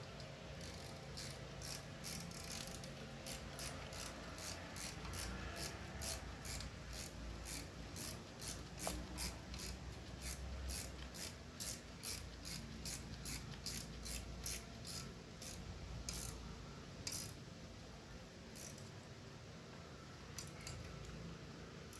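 Ratchet wrench tightening a 12mm bolt on a backhoe quick connect: a steady run of ratchet clicks, about two to three a second, that stops well before the end with only a few scattered clicks after.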